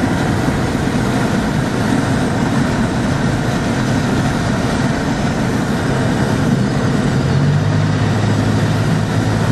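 Road noise inside a moving car: a steady engine and tyre drone with hiss above it. The low engine hum grows stronger about three quarters of the way through.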